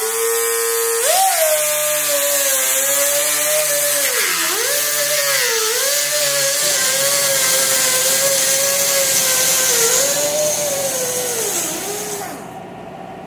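Air-powered die grinder with a cutting blade slicing through hardware cloth (wire mesh): a loud, high whine over a hiss. Its pitch sags several times as the blade bites into the wire and then recovers. It spins down and stops shortly before the end.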